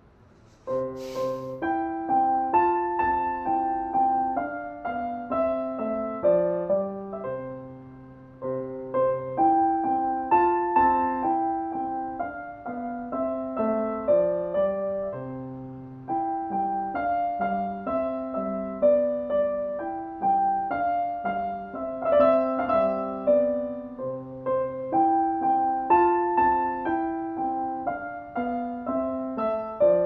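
Solo piano playing a slow, gentle melody, one note after another over occasional held low bass notes.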